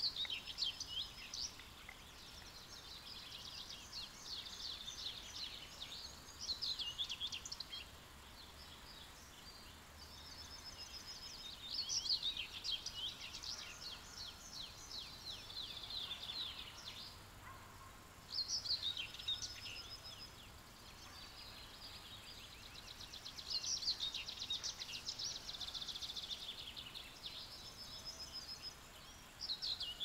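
Songbirds singing: high, fast, trilling song phrases a few seconds long, repeated every several seconds with short pauses between, over a faint steady outdoor hiss.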